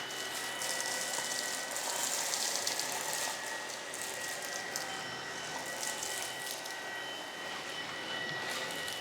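Tineco PURE ONE S11 cordless stick vacuum running in auto mode on a hard floor: a steady high whine over a rushing hiss. Dry lentils, rice and biscuit crumbs crackle and rattle up the nozzle as they are sucked in.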